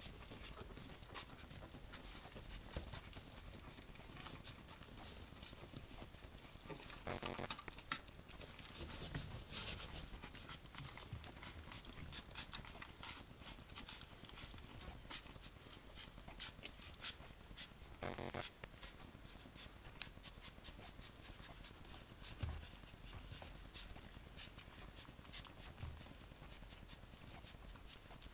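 Three-week-old Tibetan terrier puppies suckling, with many small clicking and smacking sounds. A short whimper comes about seven seconds in and another about eighteen seconds in.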